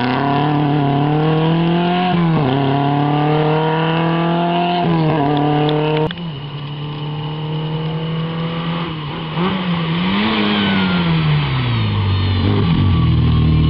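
Fiat Ritmo rally car's engine revving hard as it accelerates away, pitch climbing with upshifts about two and five seconds in. After a sudden break about six seconds in, a second small rally car, an Autobianchi A112 Abarth, approaches more quietly; its revs drop as it brakes for the hairpin and rise again near the end as it accelerates out.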